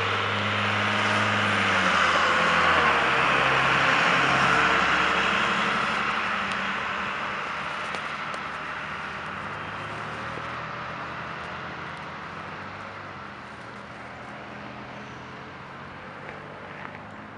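Flat-nose school bus driving past and pulling away, its engine hum loudest a few seconds in, then slowly fading into the steady sound of city traffic.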